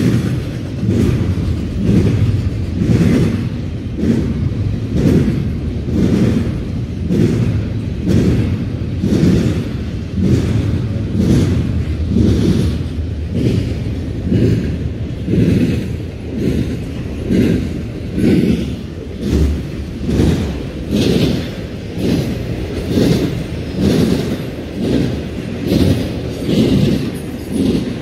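Intermodal freight train cars rolling past close by: a steady low rumble with a rhythmic clatter of wheels over the rails, about one beat a second.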